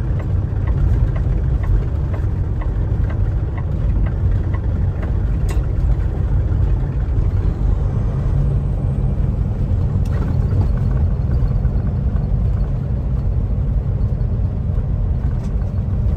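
Steady low rumble of a Kenworth T680 semi truck's engine and tyres, heard from inside the cab while driving. Faint regular ticks sound over the first few seconds.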